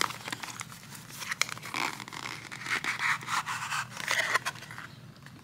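Paperboard box being handled and opened: scraping and rubbing of card against card, with a few sharp clicks of long fingernails against the box.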